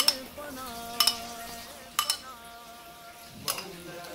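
A spoon knocking against bowls four times, each clink followed by a short ring, as yogurt is tipped and scraped into a steel mixing bowl.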